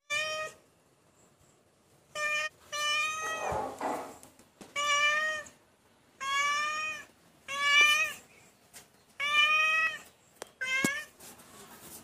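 Domestic cat meowing repeatedly, about eight short meows each under a second long, with brief pauses between them.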